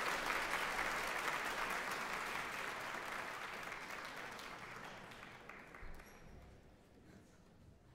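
Audience applauding, the applause fading away steadily until it is nearly gone near the end.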